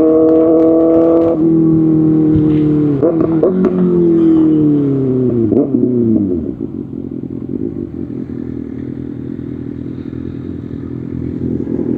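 Kawasaki Ninja ZX-6R's 636 cc inline-four engine through an Arrow Pro Race exhaust, held at high revs, then shifting down with quick throttle blips around three and four seconds in as the pitch falls. From about six and a half seconds it settles to a lower, steady running sound.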